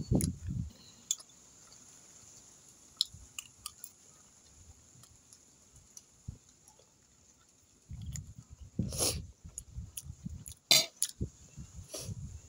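Someone eating at a table: chewing, with scattered sharp clicks of a metal spoon against a plate and a denser run of low knocks and clicks in the last few seconds.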